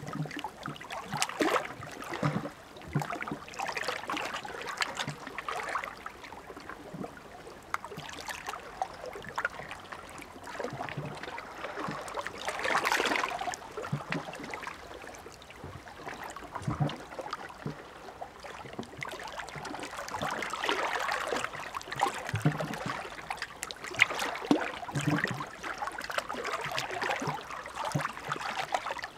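Small sea waves lapping and splashing irregularly at the shore, with scattered soft low thumps of water. The wash swells about halfway through and again in the last third.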